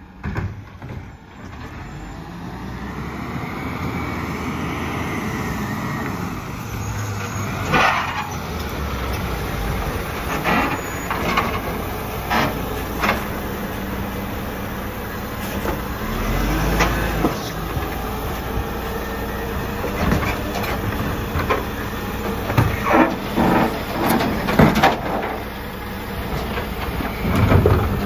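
Volvo side-loader garbage truck with a Superior Pak body pulling up, its engine getting louder as it nears, with a gliding squeal and hiss from the brakes. It then runs steadily with repeated clanks and knocks and a low rev surge about halfway through as its automated arm reaches out to grab the wheelie bin.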